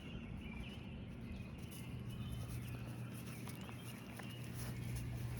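Faint birds chirping over a steady low outdoor rumble, with a few light ticks like footsteps.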